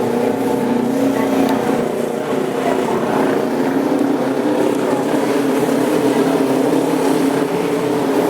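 Auto race motorcycle engines running steadily on the oval track, a continuous engine drone that shifts slightly in pitch.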